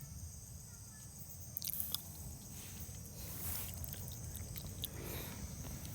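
Steady high-pitched insect chorus from the surrounding forest, with a few soft clicks and rustles about two seconds in.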